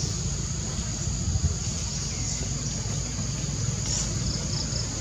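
Steady high-pitched drone of insects such as cicadas or crickets over a continuous low rumble, with a few faint short chirps near the end.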